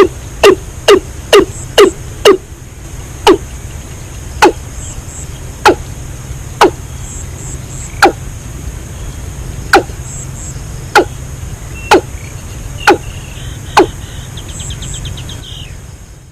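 A series of sharp knocks, about two a second at first, then slowing to about one every second or so, over a steady low hum.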